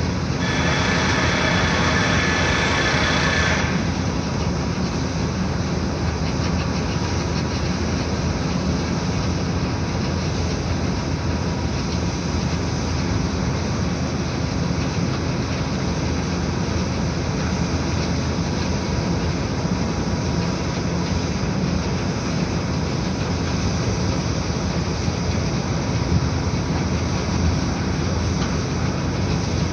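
Steady rumble of road traffic and construction-site machinery heard from above, with a brighter hiss for the first few seconds before it settles to a constant drone.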